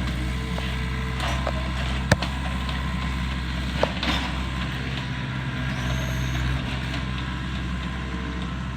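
Engine of a heavy machine running steadily as it pushes against a wooden structure, with two sharp cracks about two and four seconds in.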